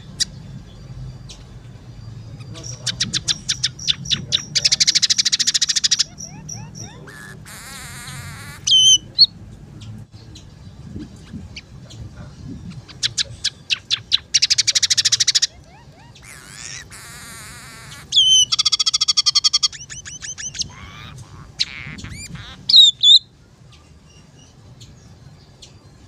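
Scaly-breasted munia singing: twice, a run of quickening clicks speeds into a long buzzy trill, followed by short slurred whistled notes.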